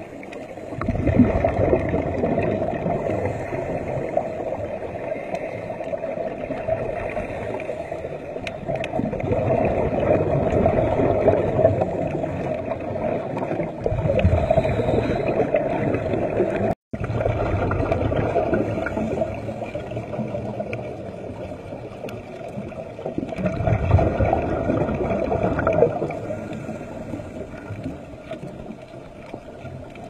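Underwater gurgling and bubbling of a scuba diver's exhaled air streaming from the regulator, heard through an underwater camera, swelling and fading in surges every several seconds.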